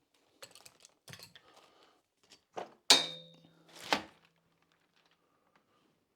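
Bike trailer parts being handled during assembly: a few light clicks and rustles, then a sharp metal clank about three seconds in that rings on briefly, and a second knock about a second later.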